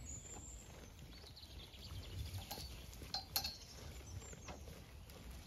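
Zwartbles sheep pulling and munching hay at a round-bale ring feeder: faint rustling with a few short knocks and clicks, the sharpest a little over three seconds in, over a low rumble.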